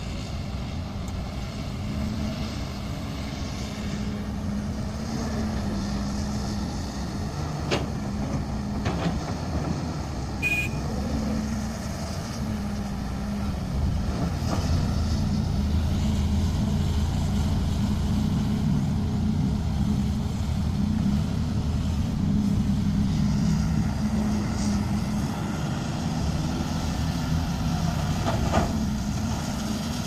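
Caterpillar 320C excavator's diesel engine running steadily as it digs, with a few sharp knocks of rock and soil.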